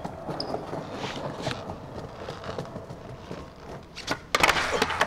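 Skateboard wheels rolling steadily over smooth paving, then, during a 360 flip attempt, a loud clatter about four and a half seconds in as the board slaps back down onto the ground.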